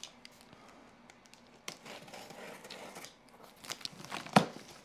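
A box cutter slicing along the packing-tape seam of a cardboard shipping box: faint scratchy scraping and crinkling of tape, with scattered clicks and one sharp click near the end.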